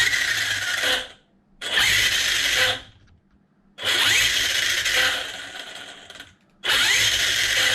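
Castle 1717 1650 kV sensored brushless motor spinning the Arrma Kraton EXB's drivetrain in four throttle blips. Each blip lasts about a second or two, with a rising whine, and cuts off sharply. It is a bench check after reversing the throttle channel: the brakes now work normally, but the motor direction is still backwards.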